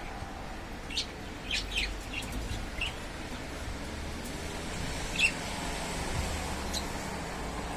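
Scattered short, high bird chirps, a few in quick succession and one louder chirp about five seconds in, over low wind rumble on the microphone.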